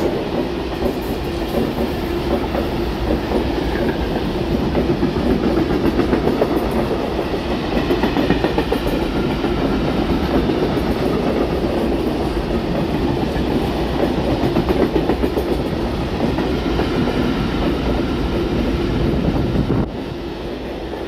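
Freight train of grain wagons rolling past, hauled by electric locomotive 155 111. The wheels clatter steadily over the rail joints, growing somewhat quieter near the end.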